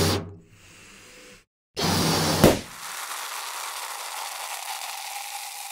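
Cartoon sound effects of a balloon being blown up: air hissing into it in two puffs, then a sharp balloon pop about two and a half seconds in, followed by a steady, quieter hiss.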